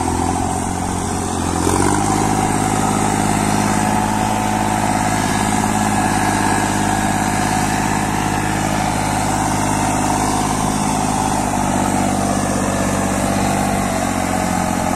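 New Holland 5620 tractor's diesel engine working under load as it pulls a trolley heaped with paddy. About two seconds in it revs up to a higher steady speed, holds there, and begins to slow right at the end.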